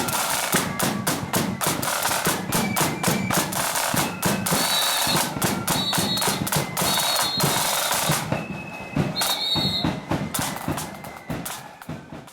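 Parading marching band playing, led by its drums: bass drum and snare drums beating a marching rhythm, with a few short high held notes above them. The drumming thins out about eight seconds in and fades toward the end.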